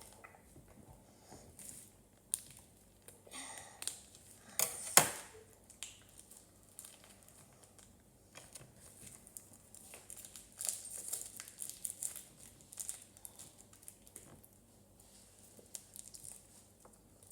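Crinkling and rustling with scattered clicks and knocks as cheese is cut and handled. A sharper knock comes about five seconds in, and the crinkling comes back more strongly around ten to twelve seconds.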